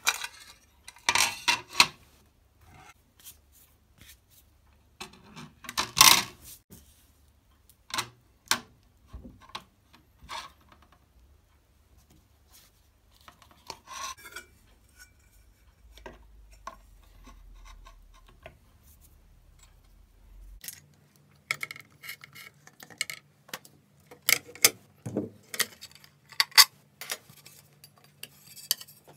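Aluminium plate handled on a metal workbench: irregular knocks, clinks and scrapes of metal on metal, with the loudest clatter about six seconds in.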